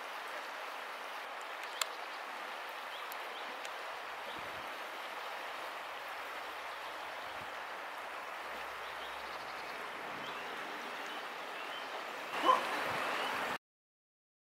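Steady rush of flowing river water, with a few faint high chirps over it. The sound swells briefly near the end, then cuts out.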